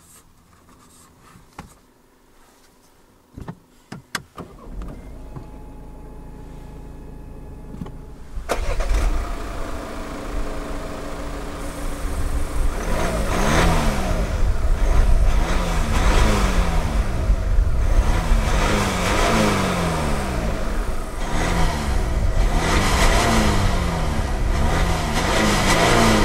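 A few clicks and a low hum, then the DS5's 2.0-litre BlueHDi four-cylinder turbodiesel starts about eight seconds in and idles. From about halfway it is revved repeatedly, its pitch rising and falling over and over.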